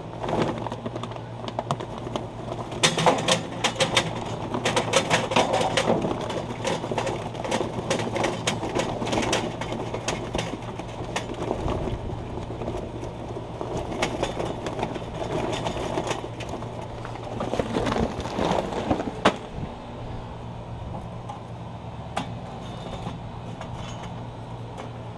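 Charcoal briquettes being poured out, a dense rattling clatter of pieces tumbling against each other. It starts a couple of seconds in and stops about twenty seconds in.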